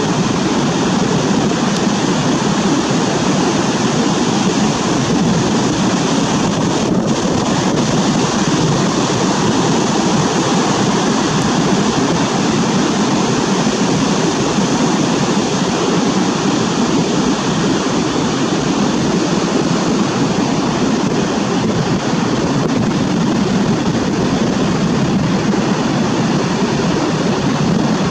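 Ocean surf breaking on a beach: a steady, unbroken roar of waves.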